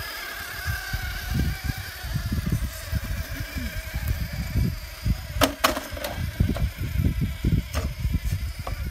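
Electric RC rock crawler climbing steep rock: a faint high motor whine under irregular low rumbling, with a few sharp knocks of the tyres and chassis against the rock, about five and a half seconds in and again near eight seconds.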